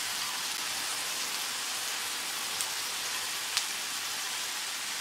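Beef sirloin, asparagus and mushrooms sizzling steadily on a hot tabletop grill pan, with two light clicks about two and a half and three and a half seconds in.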